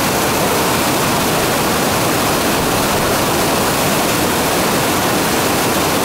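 Waterfall: white water rushing down over rock slabs in a steady, loud roar.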